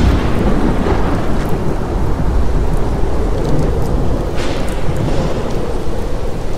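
Thunderstorm: a continuous low rolling thunder rumble over heavy rain. About four seconds in, a brief hiss of wind or surf rises over it.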